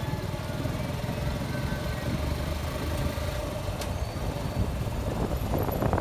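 Suzuki Gixxer SF 155's single-cylinder engine running steadily under way, with a louder rush of noise building near the end.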